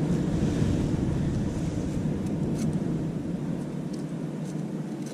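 Wind rumbling on the microphone over ocean surf, with a few faint clicks.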